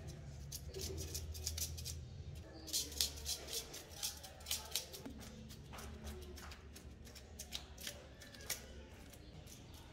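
Knife scraping the scales off a whole carp: a run of short, sharp scrapes at an uneven pace, several a second, growing crisper from about three seconds in.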